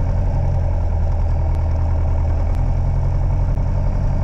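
Light aircraft's piston engine running steadily at low power, heard from inside the cockpit as a constant low drone while the aircraft rolls on the ground.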